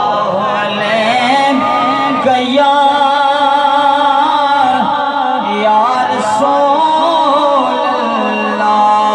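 A man singing a naat, Urdu devotional verse in praise of the Prophet, solo into a microphone, amplified. He sings in long held notes that waver and slide in pitch.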